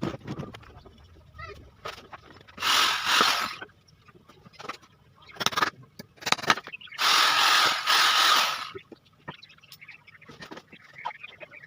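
A handheld power tool run in two short bursts, one of about a second and one of about a second and a half, with workshop clicks and knocks between them.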